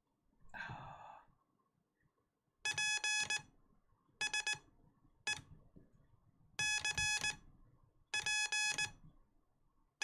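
Morse code (CW) practice audio: a single pitched beep tone keyed on and off into short and long elements, grouped into several characters about a second apart beginning near three seconds in, sending a call sign to be copied by ear.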